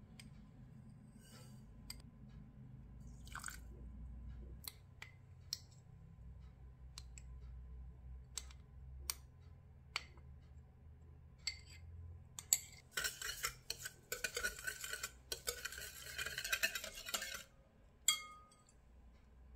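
Scattered light clinks and taps of a spoon and small glass dish against a glass mixing bowl, then a wire whisk beating egg yolks and sugar in the glass bowl: a rapid, quick rattle for about four seconds that stops a little before the end.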